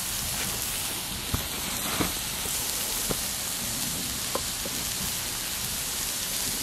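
Whiting and salmon fillets frying in oil on a propane flat-top griddle: a steady sizzling hiss with a few sharp pops scattered through it.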